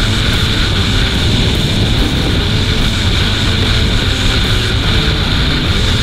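Rusi Gamma 200cc motorcycle cruising at a steady highway speed. Its engine and the wind rush over the microphone make one loud, unbroken rumble.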